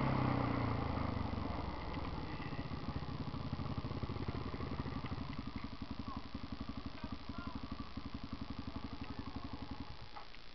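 Quad bike engine dropping from riding down to a fast, even idle that slowly fades, then cutting off abruptly near the end.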